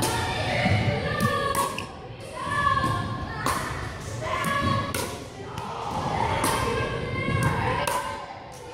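Sharp hits and bounces of a pickleball rally, coming about every second or so and sometimes in quick pairs, echoing in a large gym hall over a background of voices.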